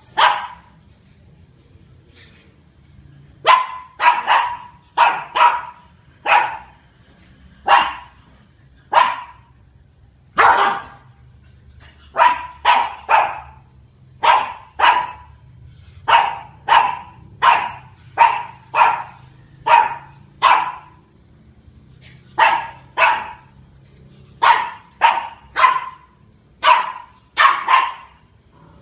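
Puppy barking over and over in short, sharp barks, mostly in quick runs of two to four with brief pauses between runs.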